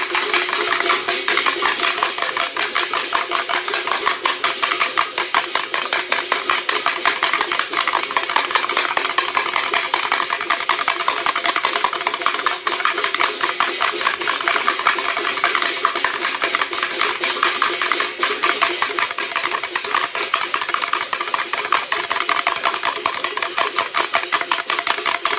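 Steady soundtrack of dense, rapid clattering over a few sustained low tones, fading in at the very start.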